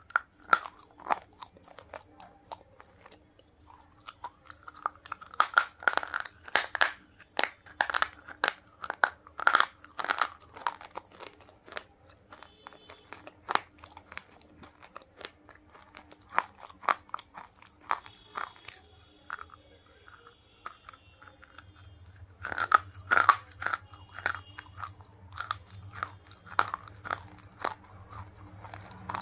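Close-miked crunching and chewing of hard, dry pink bars, sharp crisp cracks as the pieces break between the teeth. The crunching comes in dense runs, with a lighter, slower stretch in the middle and another burst a little over twenty seconds in.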